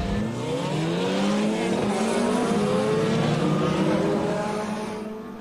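A field of race car engines accelerating away from a standing start, several overlapping engine notes rising in pitch together. The sound fades near the end as the cars pull away.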